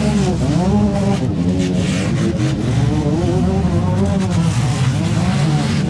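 Demolition derby mini cars' engines revving, several at once, loud and continuous, their pitch rising and falling again and again.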